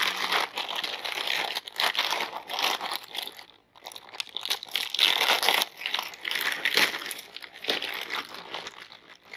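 Plastic candy bag crinkling as hands handle and open it, a run of irregular rustles with a short pause about three and a half seconds in.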